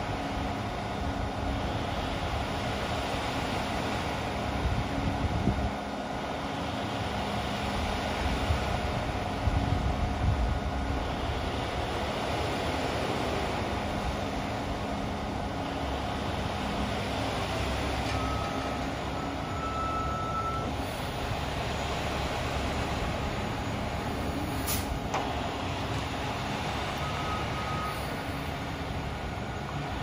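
Concrete mixer truck's diesel engine running steadily, its mixing drum turning, as the truck sits and then drives off. A thin high whine sounds twice in the second half, and there is one brief sharp sound near the end.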